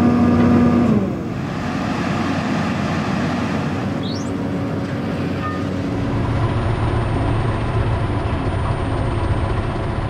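VÖGELE MT 3000-2i Offset tracked asphalt feeder running, with a steady whine that drops away about a second in, then a rougher, deeper machine sound that grows heavier about six seconds in.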